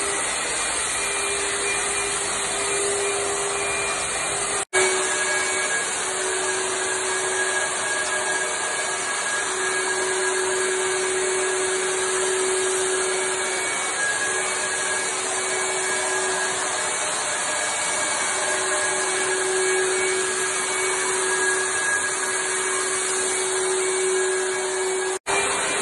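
Handheld electric disinfectant fogger running: a steady motor hum with a rush of air, breaking off for an instant twice.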